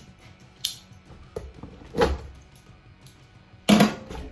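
Background music with drums and cymbals: a few irregular sharp hits over faint sustained tones, the loudest hit near the end.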